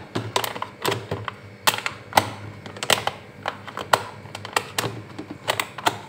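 Plastic food containers and lids knocking and clicking against each other and the refrigerator shelf as they are moved, a run of irregular sharp clicks.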